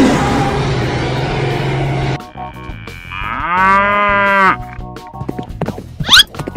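Cow mooing once, a single call of about a second that rises and then holds. Before it, a loud rough noise cuts off suddenly about two seconds in. Near the end comes a short, quick rising whistle-like effect.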